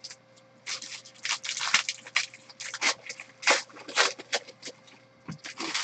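Foil wrapper of a trading-card pack crinkling and tearing as it is pulled open by hand, in a run of irregular crackles.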